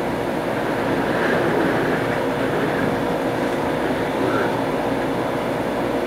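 Steady machinery noise: a continuous mechanical running hum with a few constant tones and no let-up.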